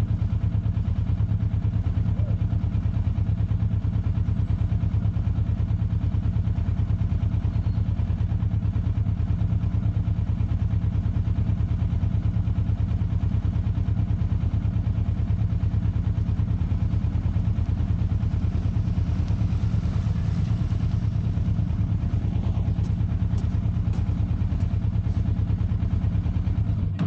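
Motorcycle engine running steadily, heard close up, with an even firing rhythm and no change in pitch.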